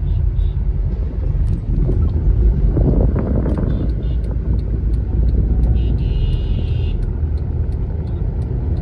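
Car engine and road rumble heard from inside the cabin in slow traffic, with a brief louder surge about three seconds in.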